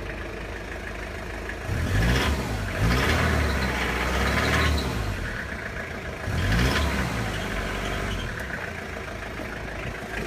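Mitsubishi Shogun's 2.8-litre 4M40 four-cylinder turbo-diesel idling, then revved twice: a longer rev about two seconds in that rises, holds and falls back, and a shorter blip around six seconds before it settles to idle. It sounds like a normal, healthy diesel.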